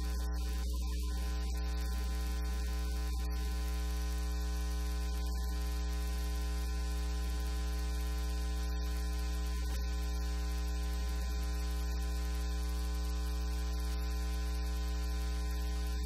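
Steady electrical mains hum: a low hum with a buzzy ladder of overtones, unchanging throughout.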